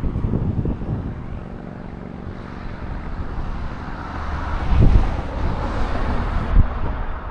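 Audi A5 (8T) on the move: a steady low engine hum under road and wind noise that swells about four seconds in. There are low thumps about five seconds in and again shortly after.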